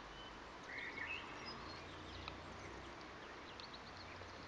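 Faint outdoor ambience: small birds chirping here and there, the clearest call about a second in, over a steady low background hum.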